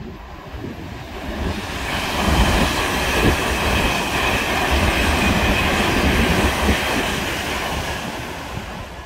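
GWR Intercity Express Train passing through at speed. The rushing wheel-and-rail noise builds over the first couple of seconds and holds with a few sharp clicks of wheels over rail joints, then eases off near the end.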